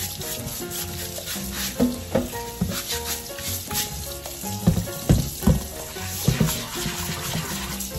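Stiff bristle brush scrubbing a black volcanic-stone molcajete under a running tap, with water splashing into a stainless-steel sink, while stone grit left from curing is rinsed out. Several sharp knocks from about halfway in, as the stone is turned over and set back in the sink. Soft background music plays underneath.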